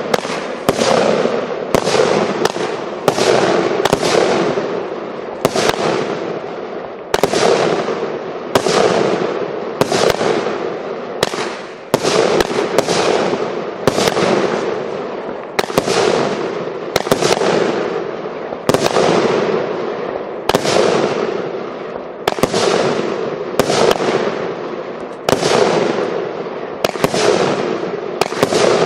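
Vulcan Europe Artillery Cannonade 144-shot firework cake firing shot after shot in a steady run. Each shot is a sharp bang with a fading tail, coming roughly every half second to second.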